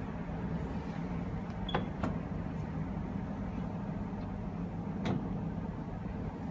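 Extending dining table being pulled open, its slide mechanism and ceramic leaf giving a few short clicks and knocks about two seconds in and again about five seconds in, over a steady low hum.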